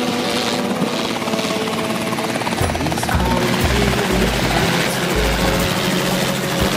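Robinson R22 helicopter running on the ground with its main rotor turning: a steady rotor and engine drone that gains a heavy low rhythmic thudding from about a third of the way in. Background music plays along with it.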